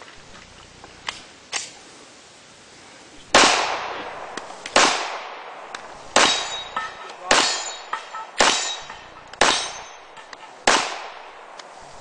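A string of seven pistol shots fired at steel plate targets, starting about three seconds in and coming roughly one every second or so. Each shot is followed by the ringing clang of a steel plate being hit.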